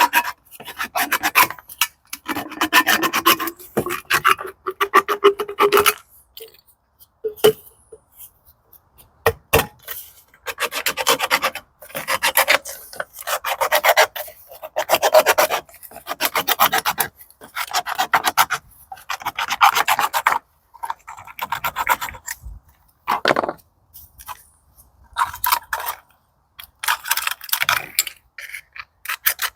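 Hand tool rasping back and forth on steel from a gas cylinder while a new gearbox shim washer is cut out of it: repeated strokes about one to one and a half seconds each, with a pause of a few seconds about six seconds in.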